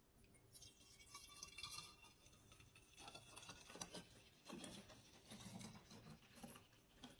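Laundry sanitizer poured in a faint, steady stream from a plastic jug into a glass bottle. Low gurgling joins in from about three seconds in as the bottle fills.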